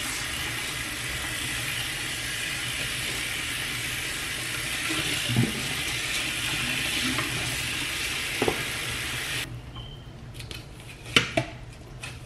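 Bathroom sink faucet running water onto a wig being worked by hand in the basin, a steady hiss. The water sound cuts off suddenly about three-quarters of the way through, leaving a few light knocks.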